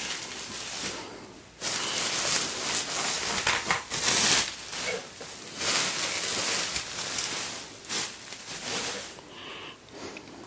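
Plastic bubble wrap crinkling and rustling in irregular bursts as it is pulled off puzzles by hand, quieter near the end.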